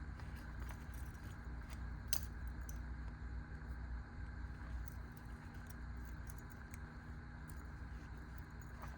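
Small metal clicks and ticks of a mini multi-tool being handled, its fold-out tools opened and snapped shut, the sharpest about two seconds in, over a steady low hum.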